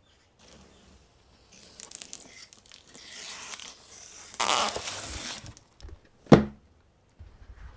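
A cardboard shipping box being opened by hand: rustling and scraping of cardboard flaps and tape for a few seconds. Then a single sharp thump about six seconds in as the packaged box inside is moved.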